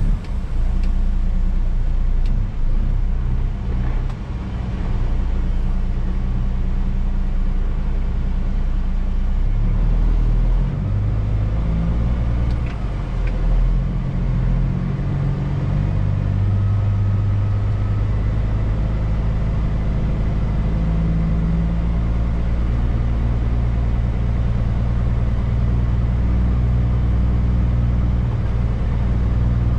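Straight-piped Cummins diesel of a Peterbilt 379 semi, heard from inside the cab, pulling away at low speed. The engine note changes pitch several times through the middle as the driver works up through the 18-speed gearbox.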